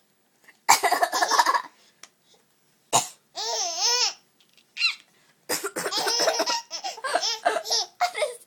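An older child coughs and a four-month-old baby laughs in reply. A sharp cough comes about three seconds in and is followed by the baby's high, wavering laugh, and a longer run of laughter mixed with coughs fills the second half.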